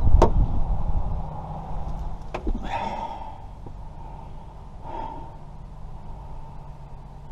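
A sharp click and a low rumble of tool handling near the start, then a man breathing out heavily twice, about three and five seconds in, over a steady low hum, as he struggles with a stuck ignition lock cylinder.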